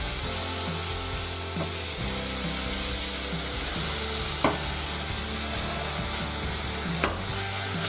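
Hake fillets sizzling steadily in hot olive oil in a frying pan, the balsamic vinegar just added to deglaze cooking down into a crust under the fish. Two sharp clicks are heard, one around the middle and one near the end.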